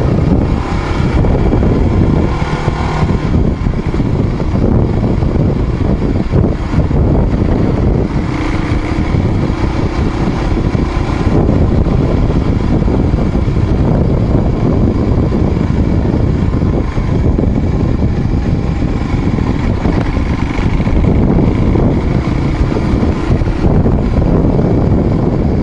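Motorcycle engine running steadily while riding a dirt mountain road, buried in a loud, even rumbling noise.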